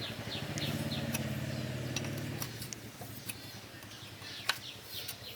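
A small engine running steadily with a low, even hum, a little louder in the first half. Short high chirps repeat over it about three times a second.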